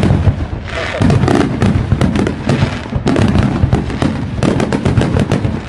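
Small fireworks and firecrackers crackling and popping in a dense, irregular run of loud snaps, over the chatter of a street crowd.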